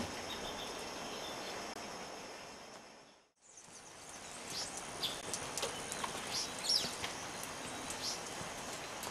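Steady background hiss with a high, steady insect drone fades out about three seconds in. It fades back in with wild birds chirping: many short, high calls scattered over the hiss.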